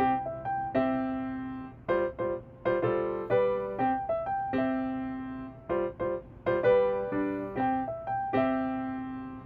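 Background piano music: a light, gentle melody of struck notes that fade after each stroke.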